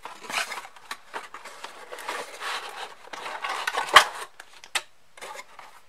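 A cardboard box and its plastic-windowed cardboard insert being handled and pulled apart: irregular scraping and rustling with small clicks. The loudest sound is a sharp snap about four seconds in.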